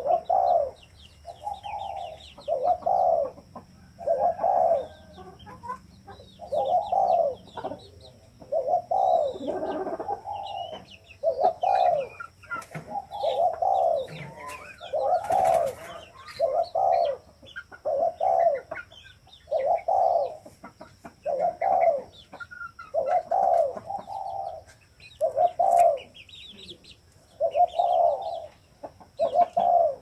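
Spotted dove cooing fast, a short low coo phrase repeated about every second and a half, the quick calling of a decoy dove. Small birds chirp faintly in the background.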